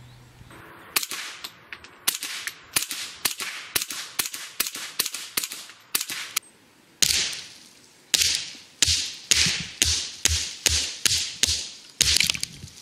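Ruger 10/22 semi-automatic .22LR rifle firing Winchester subsonic rounds in rapid fire, about three sharp shots a second. There are two strings of shots with a short pause between them, about halfway through.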